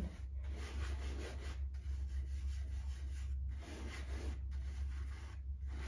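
Pastel being rubbed and worked into paper by hand, a dry scratchy sound in strokes with brief pauses between them, over a steady low hum.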